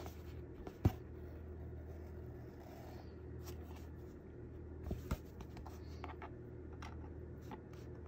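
Faint handling sounds of a hand-sewn journal: light rustling and scratching as the book is turned over and needle and thread are worked through the paper, with a couple of soft taps, over a steady low hum.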